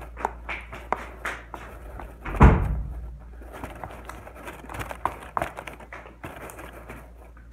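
Hands mixing slime in a clear plastic tub: scattered small clicks, taps and scrapes of fingers and plastic, with one loud thump about two and a half seconds in.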